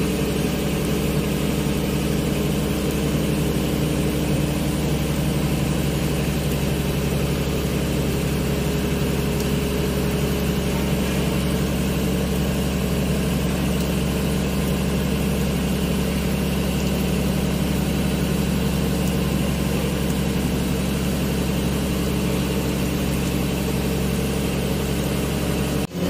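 Excavator's diesel engine running steadily, heard from the machine's cab.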